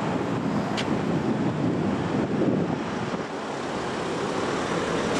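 Steady city street noise: traffic rumbling past, with wind buffeting the microphone.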